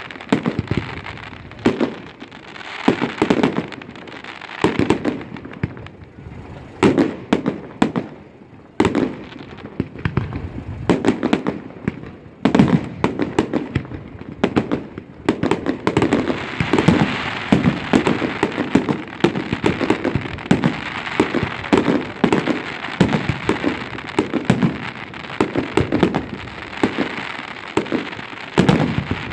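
Aerial firework shells launching and bursting in a continuous barrage: sharp bangs one after another, with crackling. From about halfway through, the bangs come thicker over a steady crackle.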